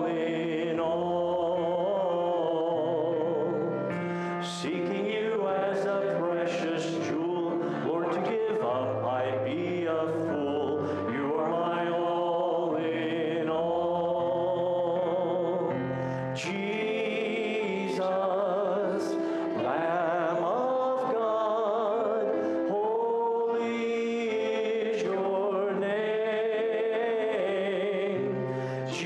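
Slow congregational worship song sung through its verse and chorus, over sustained instrumental accompaniment.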